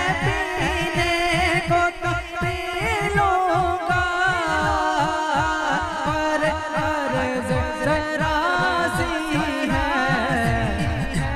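A man sings a devotional naat into a microphone, with a wavering melodic line over a low held drone. Underneath runs a quick, even pulse of deep falling beats, about three a second.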